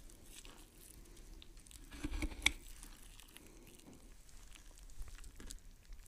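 Ring-tailed lemurs scrabbling on a tree branch: faint scattered scratches and rustles over a low rumble, busier about two seconds in, with one sharper click.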